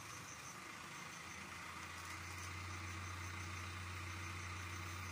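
A steady low engine hum, like a motor vehicle idling.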